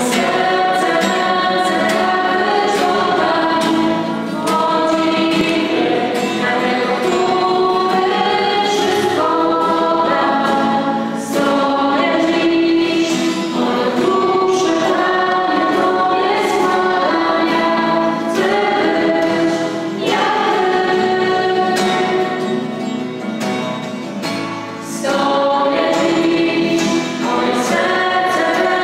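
Christian worship song sung by a small group of singers, mostly women's voices, to acoustic guitar strumming, continuing steadily.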